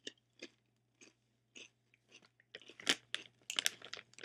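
A person chewing a mouthful of crunchy oven-baked Crunchmaster multi-seed cracker: short crunches about two a second, coming thicker and louder over the last second and a half.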